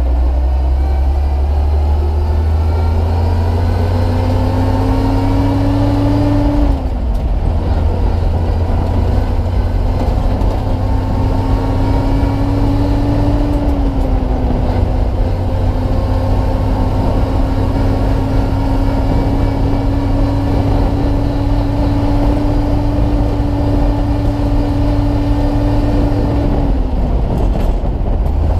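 A 1946 Chevrolet 2-ton truck's inline-six engine pulling a heavy load, heard from inside the cab over road noise. The engine pitch climbs, falls about a quarter of the way in, climbs again and falls about halfway through, holds steady at cruise, then drops once more near the end.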